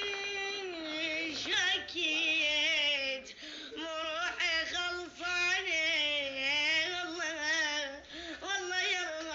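A child's solo voice singing long, wavering ornamented phrases with no clear words, pausing briefly for breath a few times.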